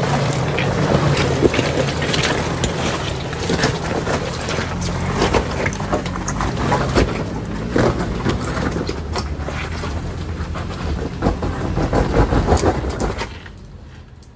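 Off-road truck engine working hard under load with a steady low drone, over frequent knocks and clatters from the tyres and rig on the rough trail. It cuts off suddenly about a second before the end.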